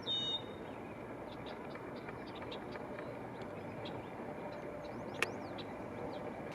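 Small birds chirping in the background, with a short whistled call at the very start and scattered brief high peeps after, over a steady low outdoor rumble of wind and distant noise. One sharp click about five seconds in.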